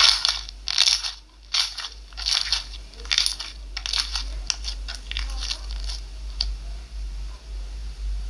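Slime being squeezed and pressed by hand, a crunchy crackle with each press about once a second for the first four seconds, then thinning into small pops and clicks. A steady low hum runs underneath.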